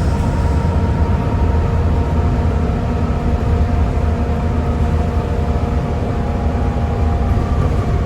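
Volvo B7TL double-decker bus's six-cylinder diesel running steadily, a deep engine drone with a steady hoovering whine over it.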